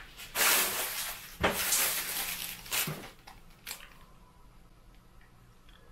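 Handling noise from a plastic toy drone on a tabletop: a few sharp knocks, each followed by a burst of rustling and scraping, over the first four seconds.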